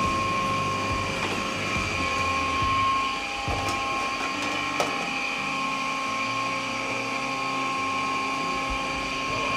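Steady hum with a high whine from running forge-shop machinery: the gas forge and the hydraulic press's pump motor. A couple of light metal clinks from the tongs as the glowing steel skillet blank is set on the press die.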